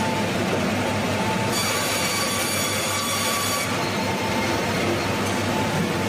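Band sawmill running with steady, loud machinery noise. For about two seconds in the middle, a high, thin whine sounds over it as the blade cuts.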